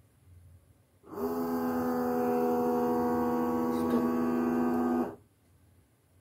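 Vacuum sealer humming steadily during its automatic vacuum-and-seal cycle. The hum starts about a second in, runs for about four seconds and cuts off abruptly.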